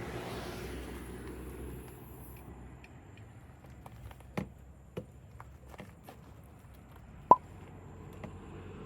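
Low steady rumble of the truck's engine under a faint high hiss that stops about two and a half seconds in, then a few sharp metallic clicks and taps from handling the refrigerant can and charging hose, the loudest a ringing click about seven seconds in.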